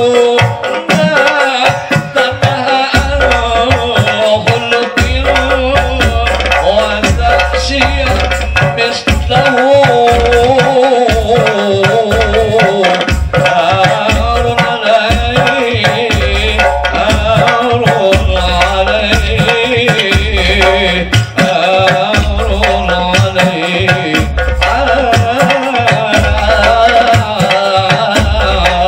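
A group of men singing to a rebana ensemble of hand-struck frame drums and a jingling tambourine, with a steady rhythm of deep drum strokes under the voices.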